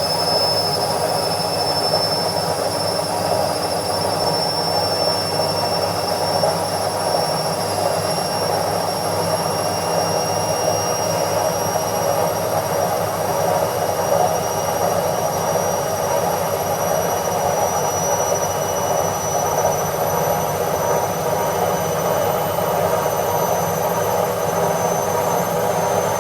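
Indesit IWC71252 front-loading washing machine on its spin cycle: a steady rush from the spinning drum, with a thin high motor whine that slowly rises in pitch.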